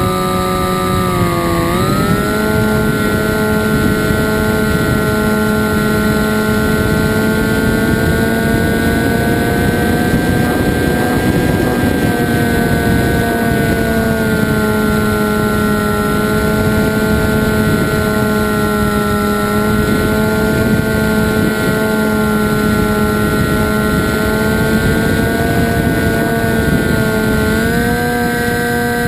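Motor and propeller of a Zagi RC flying wing, heard from a camera on board: a steady droning hum over a rush of wind. The pitch dips about a second and a half in, holds, then rises a little near the end.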